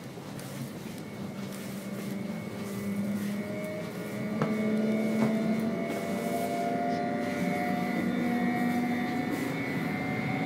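Hum and whine of a Trenitalia electric train's motors heard from inside the passenger carriage, the tones climbing slowly in pitch and growing louder as the train picks up speed. Two brief clicks come about four and five seconds in.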